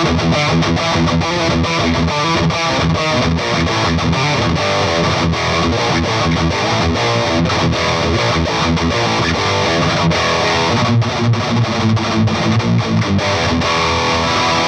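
Electric guitar played through a Peavey Bravo 112 all-tube combo amp on its highest-gain channel with the pre-gain all the way up: fast, heavily distorted thrash metal riffing.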